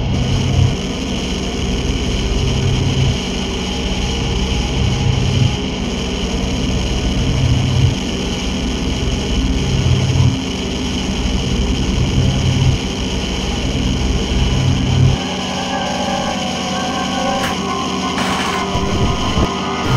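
Steady electronic drone music with a low bass pulse about every two and a half seconds. The pulse stops about fifteen seconds in, and a short stepping higher line of notes comes in near the end.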